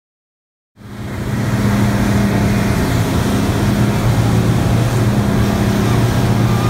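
Twin outboard motors on a fishing boat running at speed: a steady engine drone with wind and rushing water over it. It cuts in suddenly about a second in, after silence.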